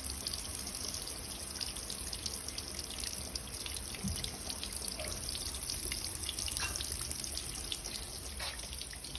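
Water leaking from household plumbing pipes, dripping and trickling steadily with many small drip ticks, a leak that follows water use upstairs.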